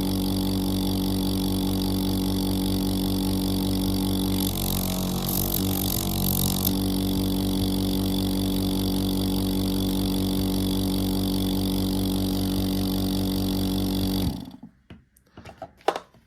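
Planet Health WHEEZE compressor nebulizer running with a steady buzzing hum, briefly joined by a louder hiss about five seconds in. It cuts off suddenly near the end, followed by a few light clicks.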